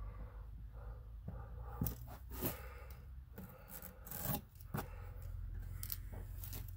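A hand rubbing and pressing window screen down onto a glued wooden board: a few short scraping strokes of palm over mesh and wood, the loudest about two seconds in and again around four seconds, over a low steady hum.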